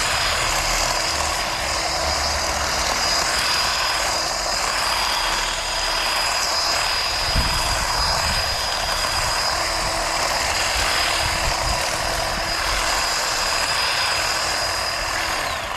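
Craftsman V20 8-inch cordless handheld hedge trimmer running steadily with a high whine, stopping near the end.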